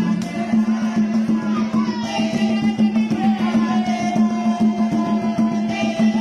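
Dance music with a steady drum beat under a constant low bass note, and a melody line that holds one note for a couple of seconds in the second half.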